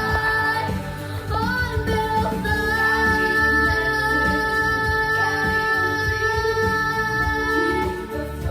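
A song sung by a choir of young voices over instrumental backing, with long held sung notes.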